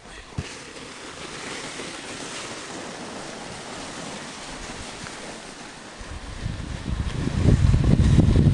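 A sled sliding down a packed-snow toboggan run, with a steady rushing noise of the ride and wind on the microphone. About six seconds in, the wind buffeting gets much louder and deeper.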